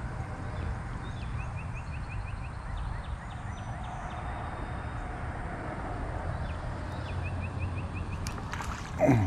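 Outdoor pond-side ambience: a steady low rumble with faint short runs of quick high ticks. Near the end a sudden loud splashing noise starts as a small bass takes the lure.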